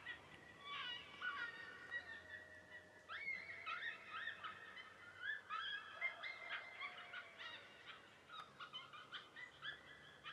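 Faint animal calls: many short, high yips or chirps in uneven runs, with two longer, lower wavering notes, one about two seconds in and one about six seconds in.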